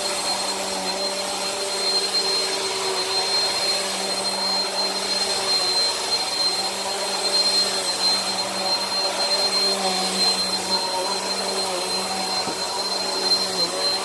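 Bissell Powerforce Helix upright vacuum running over carpet: a steady motor hum with a high, constant whine, its lower tones wavering slightly as it is pushed along.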